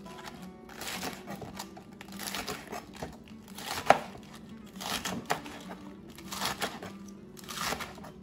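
Kitchen knife slicing through crisp romaine lettuce on a plastic cutting board: a run of irregular crunchy cuts, with one sharper snap about four seconds in.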